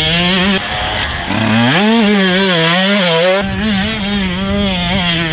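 2022 Husqvarna TC125's 125cc two-stroke single-cylinder engine running at high revs, its pitch climbing sharply about a second and a half in, then wavering up and down as the throttle is worked.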